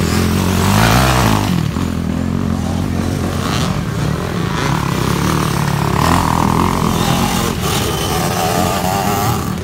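Motocross dirt bikes' engines revving and running as the bikes race past over the course, their pitch wavering up and down with the throttle.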